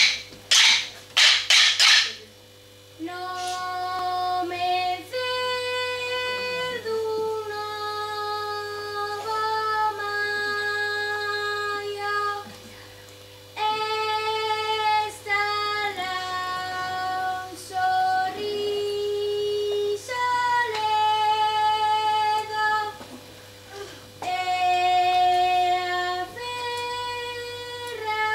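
A few sharp clacks of wooden sticks struck together, then a young girl singing a slow tune unaccompanied, in long held notes with short pauses between lines.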